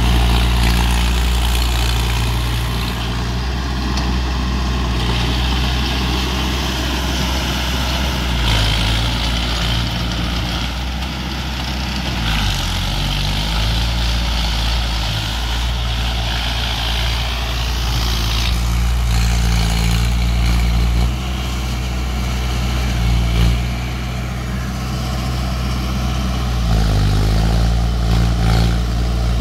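Mahindra Arjun 555 DI tractor's four-cylinder diesel engine running steadily under load while driving a rotavator that churns the soil. The engine note dips and recovers briefly twice, about halfway through and near the end.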